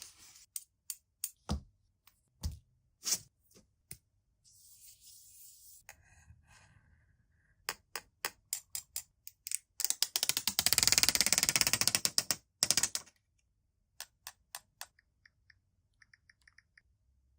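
Phone box and packaging being handled: scattered sharp clicks and taps, a soft rustle, and a dense two-second burst of rapid crackling about ten seconds in. A few faint short chirps come near the end.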